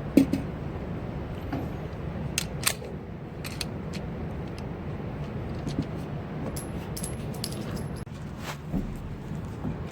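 Scattered sharp metallic clicks and clinks over a low steady background, with one louder knock just after the start.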